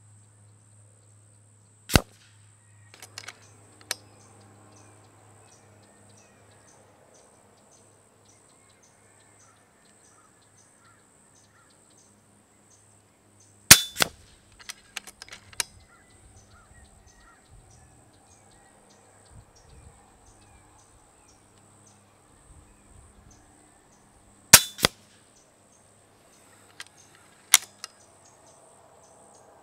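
Three shots from an FX Impact X .25 regulated PCP air rifle, heard from the target end of a 50-yard range, each a sharp crack, the second and third as a quick double. Between the shots come lighter metallic clicks as the side lever is cycled to chamber the next pellet.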